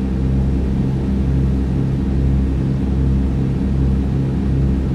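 Douglas DC-3's radial piston engines and propellers droning steadily in flight, heard from inside the cabin, with an even pulsing beat about twice a second.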